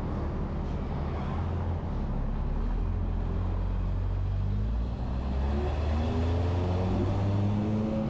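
Road traffic: vehicle engines running steadily, with one engine rising in pitch as it accelerates about five seconds in.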